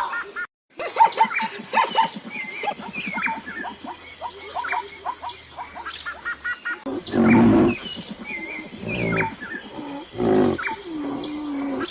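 Monkey calls: a run of quick short calls, then several louder, longer calls in the second half, with birds chirping high in the background.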